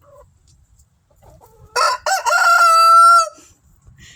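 A rooster crowing once, a single cock-a-doodle-doo about a second and a half long that starts about two seconds in, with a long held final note.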